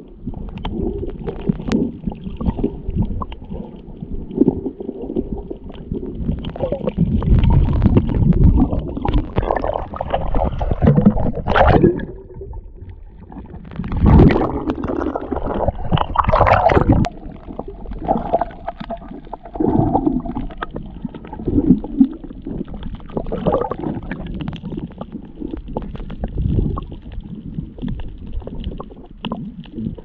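Muffled water sloshing and gurgling around a camera moving underwater and at the sea surface, with irregular louder surges.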